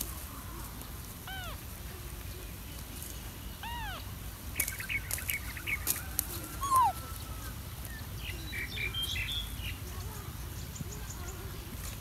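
Short, high animal calls: two arching squeaks about one and a half and four seconds in, clusters of chirps, and one louder falling squeak about seven seconds in, over a steady low rumble.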